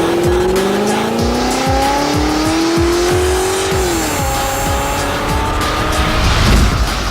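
Music with a steady beat, laid over a car engine revving in one long rising pitch that drops away about four seconds in, then rises again more briefly.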